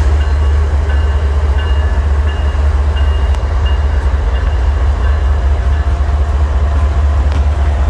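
Diesel locomotive moving through a rail yard: a steady, heavy low rumble, with short high-pitched squeals coming and going on top.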